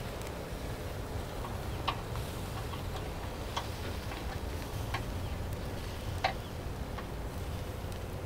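Four sharp clicks spread over several seconds as wooden skewers of octopus are handled and turned on the wire grate of a small charcoal grill, over a low steady rumble.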